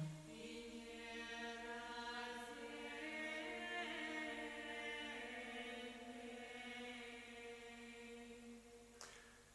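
Quiet film soundtrack music of long, held, chant-like notes, stepping to a new chord about two seconds in and slowly fading over the last few seconds.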